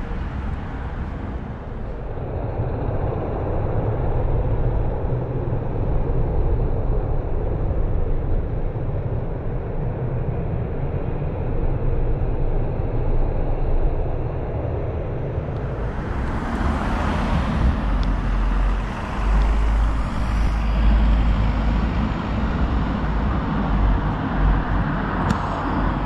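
Road traffic on a town street: a steady rumble of vehicles, with one passing more loudly about two-thirds of the way through and another swelling near the end.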